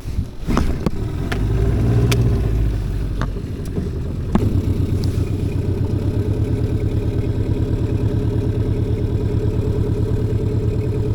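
An engine running, heavier for the first few seconds, then settling after a click into a steady idle with a fast, even pulse.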